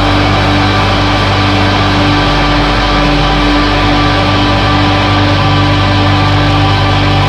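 Blackgaze band music at a loud, steady climax: a dense wall of distorted guitars holding a sustained chord over a low drone.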